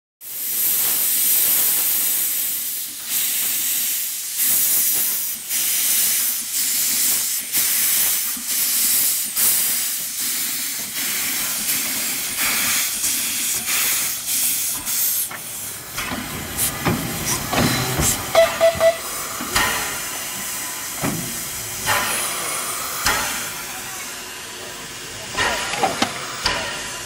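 Narrow-gauge steam locomotive Kч4-332 venting steam from its open cylinder drain cocks as it gets under way: a loud steam hiss with chuffs about once a second, coming gradually closer together. About 16 seconds in the hiss drops and irregular metallic clanks and knocks take over.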